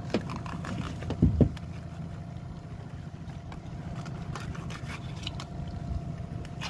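A king salmon being handled and filleted on a boat's cleaning table: heavy thumps of the fish against the table about a second in, then scattered short scrapes and clicks of the knife and gloved hands. A steady low rumble and a faint steady hum lie underneath.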